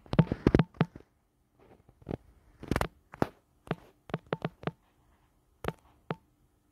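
Quick, irregular taps of typing on a smartphone's touchscreen keyboard, about one or two a second, with a busier cluster in the first second.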